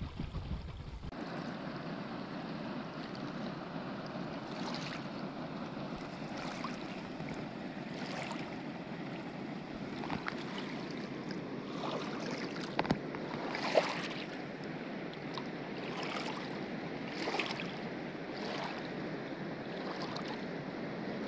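River water rushing steadily past the bank, with small splashes and laps of water breaking at the pebbly edge; two slightly louder splashes come about two-thirds of the way through.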